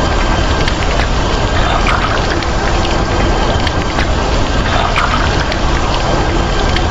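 Steady heavy rain: a dense, even hiss with many small pattering clicks.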